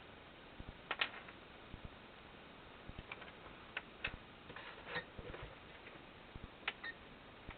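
Irregular light clicks and taps from hands working small drone electronics and buttons while searching for the FPV camera's frequency, with one short electronic beep near the end.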